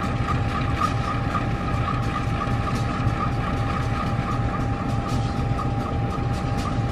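Diesel-electric locomotives idling: a steady low engine hum with a constant whine, and a light mechanical ticking about three times a second over it.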